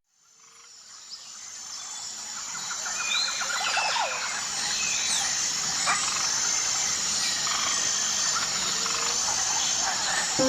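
Woodland birdsong: several birds chirping, whistling and trilling over a steady outdoor hiss, fading in over the first few seconds.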